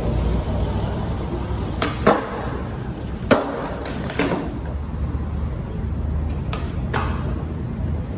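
Skateboard wheels rolling on concrete with a steady low rumble, broken by a few sharp clacks of the board striking the ground: two in the first half and two close together near the end.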